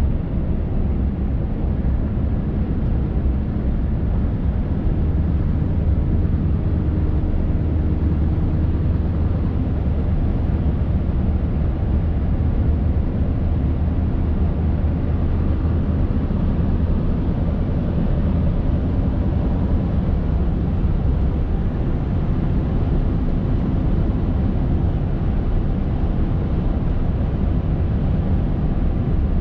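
Cab-interior sound of a Scania R580's 16-litre V8 diesel truck engine running steadily at cruise, a constant low drone with tyre and road noise over it and no change in pitch or level.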